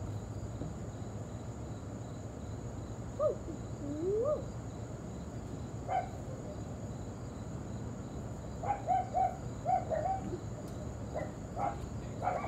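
Insects droning steadily outdoors with a thin high tone, over a low background hum. A few faint short calls come through, including a quick run of them about nine seconds in.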